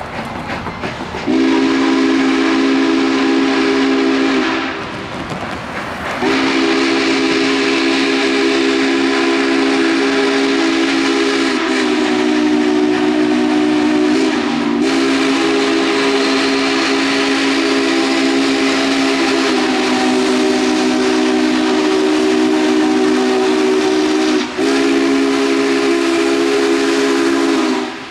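Union Pacific 844's chime steam whistle, several tones sounding together as one chord. It gives a blast of about three seconds, then after a short pause a long held blast lasting most of the rest, broken briefly twice. The approaching 4-8-4 Northern steam locomotive and train run beneath it.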